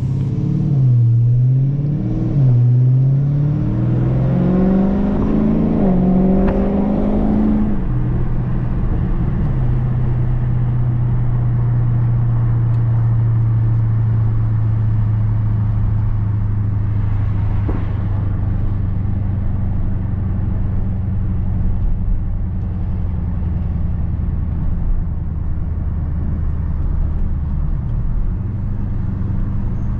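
2019 Dodge Charger Scat Pack's 392 HEMI V8 accelerating, its pitch dipping and rising twice early on as it shifts up, then climbing for several seconds. About eight seconds in the throttle comes off and it settles into a steady low drone at cruising speed for the rest of the time.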